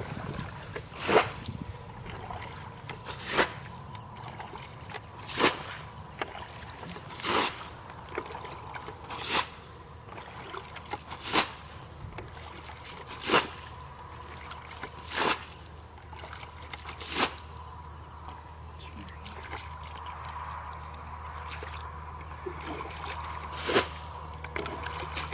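Plastic bucket bailing muddy water from a shallow pond: a scoop and a sharp splash of thrown water about every two seconds, with a pause of several seconds late on before the bailing resumes.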